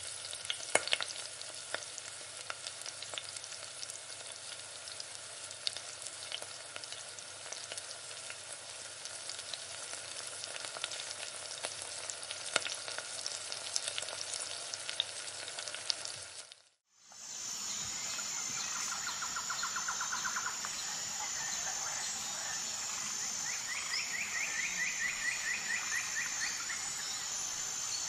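Food frying in a pan: a steady sizzle with many small crackles and pops for about the first sixteen seconds. It then cuts off and gives way to outdoor ambience, a steady high-pitched hum with birds trilling twice.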